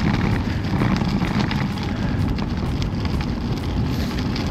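Wind buffeting the microphone of a moving cyclist: a steady, low rushing noise.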